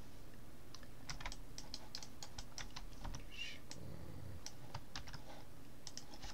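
Irregular clicking of a computer keyboard and mouse, several clicks a second, starting shortly after the beginning.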